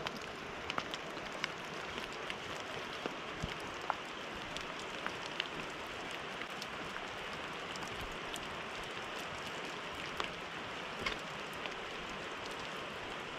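Rain falling steadily as a constant hiss, with scattered single drops landing close by as separate ticks.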